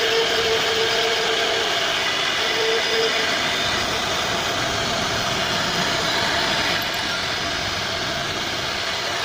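CNC router spindle running steadily while its bit carves a relief pattern into solid wood, a continuous machine whine over the hiss of cutting.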